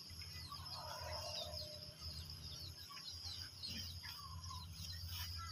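Faint chirping of small birds, many short high chirps in quick succession, over a low steady hum.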